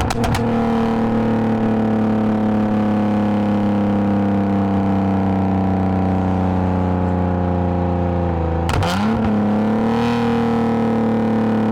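Lexus IS250 AWD's 2.5-litre V6 through an aftermarket full exhaust with valved mufflers, droning steadily with revs slowly falling while it cruises off throttle. About nine seconds in, the revs jump up quickly, as with an automatic downshift, and then hold steady.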